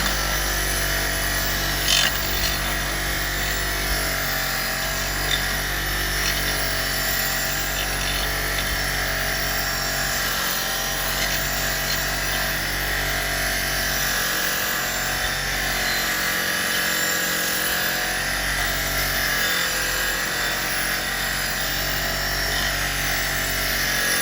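A power tool's rotary wire brush running steadily, cleaning the rust off an old steel box spanner.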